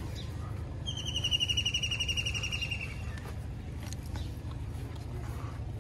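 A bird's rapid trill of about two seconds, a fast run of high notes falling slightly in pitch, over a low steady background hum.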